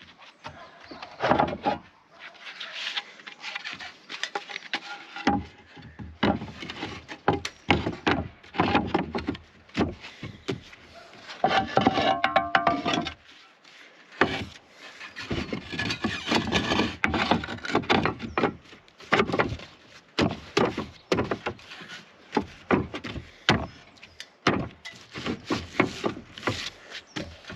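Reclaimed roof tiles being slid and set into place, with irregular clunks and scraping of tile on tile and a brief squeak about twelve seconds in.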